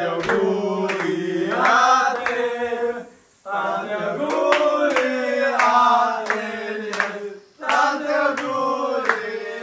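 A group of men singing a celebratory chant together, to hand claps. The singing comes in three phrases, with a short break about a third of the way in and another near the end.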